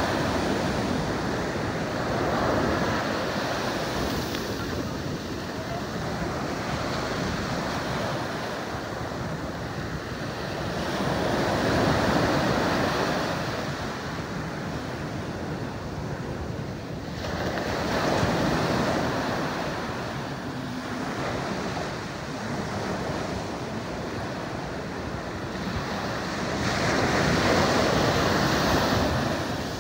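Ocean surf breaking and washing up a sandy beach, a steady rush that swells and fades in surges several seconds apart, the biggest near the end.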